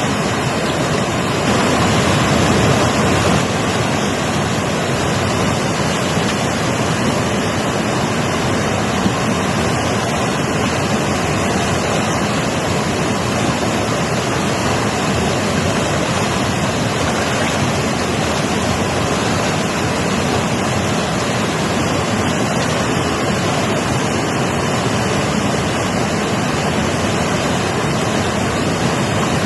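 Mountain river rushing steadily, a dense, even roar of water with no breaks.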